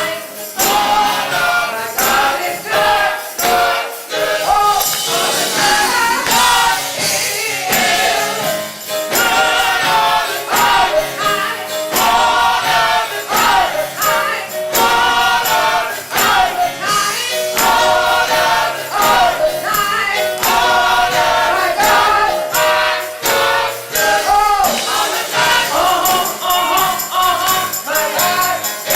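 Live gospel music: a choir singing with a band and a shaken tambourine keeping a steady beat.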